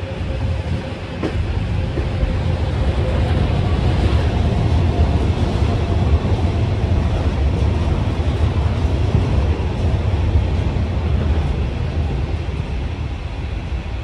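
Passenger train running at speed, heard from aboard: a steady low rumble of wheels on rails that swells about a second in.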